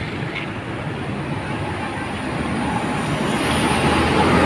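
Steady engine and road rumble from passing traffic, growing louder toward the end, with no horn sounding.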